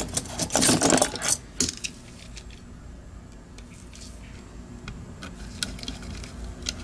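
Hard plastic mouse shell and parts clicking and clattering as they are handled and fitted together, with a quick burst of clicks in the first second and a half and a few light ticks near the end.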